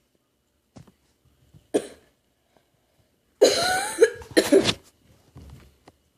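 A person coughing: one short cough about two seconds in, then a loud, voiced bout of several coughs a second and a half later.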